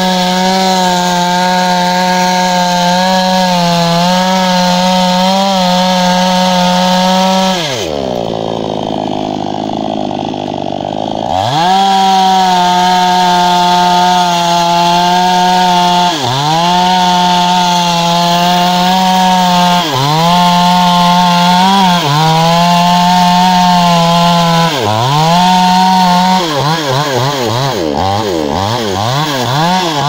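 Two-stroke chainsaw cutting through a felled tree trunk at high revs. About eight seconds in it drops to idle for about three seconds, then revs back up and cuts again, dipping briefly several times as it loads in the wood. Near the end the revs swing rapidly up and down.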